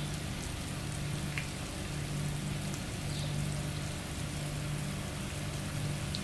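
Olive oil sizzling gently over low heat with sliced garlic, chopped makdous and chili flakes in it, infusing the oil. A low hum comes and goes underneath.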